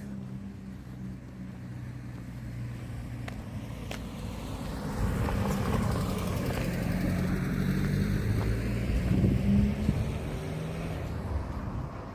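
A car drives past. Its engine hum and tyre noise swell to a peak a little past halfway through, then fade.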